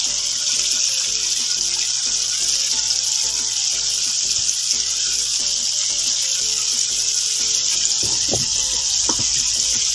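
Flour-coated chicken pieces deep-frying in a pan of hot oil: a steady, dense sizzle that holds even throughout.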